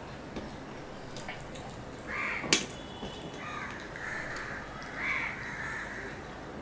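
Crows cawing several times, a run of harsh caws between about two and five seconds in, with one sharp click about two and a half seconds in.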